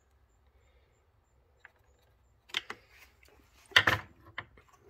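Scattered short clicks and knocks of small hand tools being handled on a wooden bench: carburetor adjustment screwdrivers with plastic handles and metal shafts. The loudest cluster of clicks comes about four seconds in.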